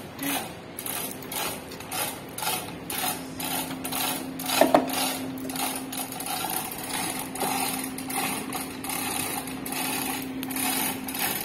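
Rhythmic mechanical clattering, about three strokes a second, over a steady hum, with one louder knock about halfway through.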